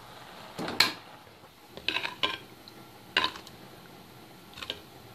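A small glass bowl clinking and knocking against a steel pot and a clay basin as washed leafy greens are scooped out of water and tipped into the pot. The loudest clatter comes about a second in, with a few quicker clinks around two seconds, another near three, and lighter ones near the end.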